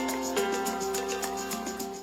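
Background music: plucked guitar-like notes over a steady beat.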